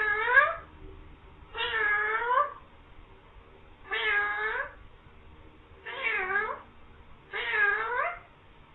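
Green pet parrot imitating a cat's meow, five meows in a row about every one and a half to two seconds, each dipping then rising in pitch.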